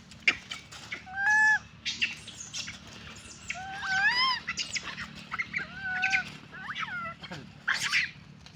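Several short, high animal calls that rise and fall in pitch, at about one, four, six and seven seconds in, with scattered clicks and rustling between them.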